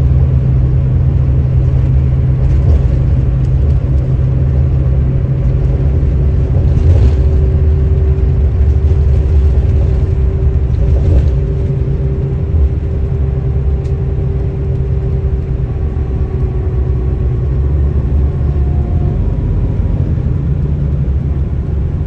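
Steady low rumble of a car's road and engine noise heard from inside the cabin at highway speed, with a faint steady whine joining for a while in the middle.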